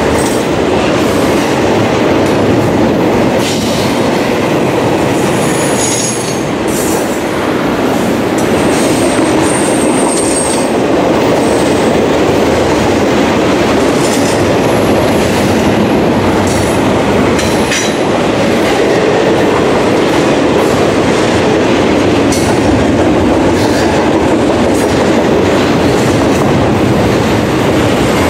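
Canadian National double-stack intermodal container train's well cars rolling past: a steady loud rumble of steel wheels on rail with clacking over the rail joints. Several brief high wheel squeals come and go.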